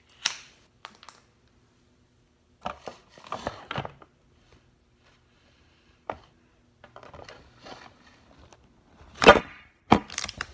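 Small hard plastic toy pieces clicking and tapping against a glass tabletop as they are handled, in scattered short knocks with some light rustling. There is one much louder knock about nine seconds in.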